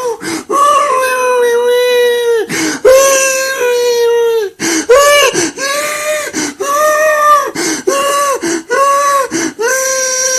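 A grown man crying like a baby: high, drawn-out wailing cries, about ten of them one after another, broken by short catches of breath.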